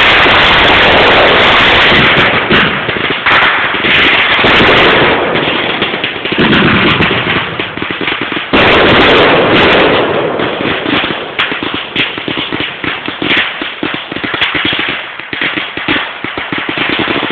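Aerial fireworks bursting overhead in quick succession, with a sudden loud blast about eight and a half seconds in, then a rapid string of sharp bangs.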